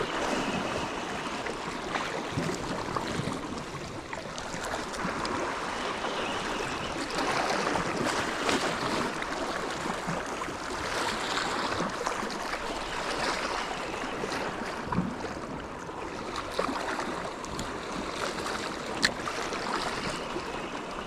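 Sea water washing against rocks: a steady rushing hiss that swells and eases, with a few small clicks and one sharper click near the end.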